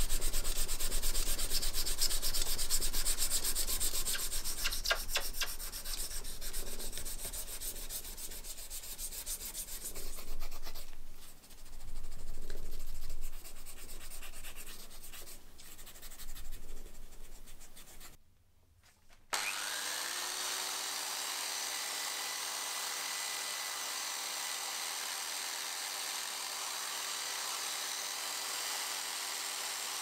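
Sandpaper rubbed by hand back and forth over a steel pocket-knife blade, quick scratchy strokes. After a short break a drill press starts up with a brief rising whine and runs steadily, spinning an abrasive disc.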